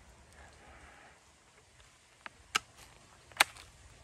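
Mostly quiet, with three faint, sharp clicks in the second half, the last two the loudest.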